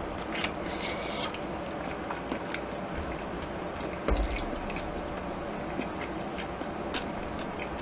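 Quiet, wet eating sounds: wooden chopsticks stirring and lifting sauce-coated jajangmyeon noodles in a stainless steel basin, with soft squelching and light clicks. A slightly louder wet sound comes about four seconds in.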